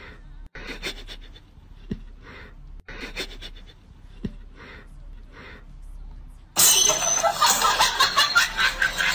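Soft, breathy laughter in short bursts, with a few faint clicks. About two-thirds of the way in, a much louder, dense burst of sound cuts in abruptly.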